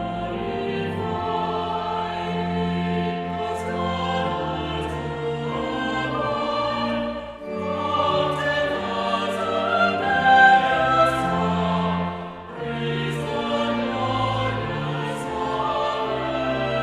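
A choir singing slow sacred music with accompaniment, in phrases with short breaks about seven and twelve seconds in.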